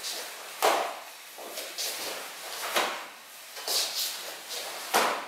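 Wooden bo staff being swung through repeated diagonal strikes: several short swishes and sliding rubs of the hands along the staff, with soft thuds of bare feet shifting on a wooden floor.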